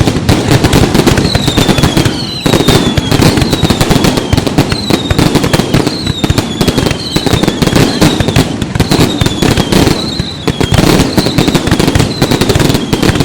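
Aerial fireworks display going off continuously: a dense, loud run of bangs and crackling, with shrill whistles that each fall slightly in pitch, repeating about once a second.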